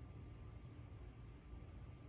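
Near silence: a faint, steady low rumble of outdoor night ambience, with a faint high blip about once a second.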